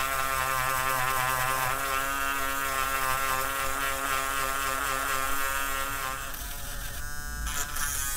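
Small 12-volt handheld mini rotary drill running with a steady high-pitched buzz, its bit working a thin wooden popsicle stick. The tone shifts about six seconds in and briefly thins a second later.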